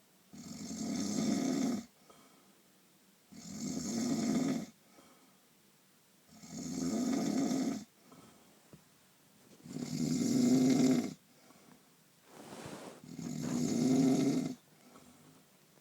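A person snoring heavily in a steady rhythm: five long rasping snores, each about a second and a half, coming roughly every three seconds with quiet breaths between.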